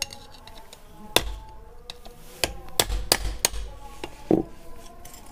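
Sharp knocks on the submersible motor while its bushing housing is being freed: one about a second in, another near two and a half seconds, a quick run of three right after it, and a duller knock past four seconds.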